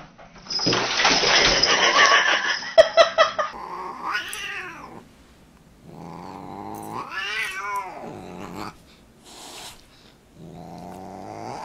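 Two cats fighting, giving a loud, harsh yowl for about three seconds. Then a Siamese cat gives long yowls that rise and fall in pitch, three of them, while it spars with a dog.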